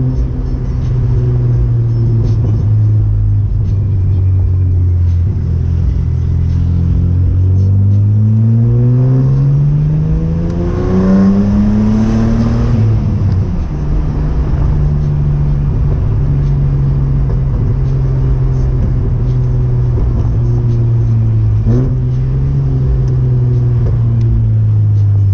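Chevrolet Omega's naturally aspirated 3.0-litre 12-valve C30NE inline-six, heard through a 2.5-inch exhaust with two sport mufflers, running steadily while driving. About a third of the way in, the revs climb for about four seconds, then fall away sharply and settle into a steady cruise again, with a brief dip and recovery near the end.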